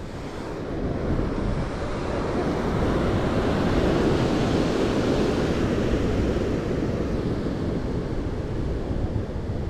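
Ocean surf breaking below, a wave's rush swelling over the first few seconds and slowly easing off, with wind on the microphone.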